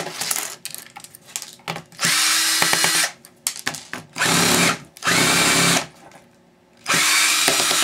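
Cordless drill driving out the laptop's back-panel screws in three short runs of about a second each, each spinning up to a steady whine. Clicks and rattles of the screws and plastic panel come between the runs.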